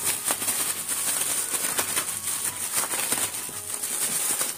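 Thin plastic bag crinkling and rustling in quick, irregular crackles as raw chicken breast is kneaded inside it.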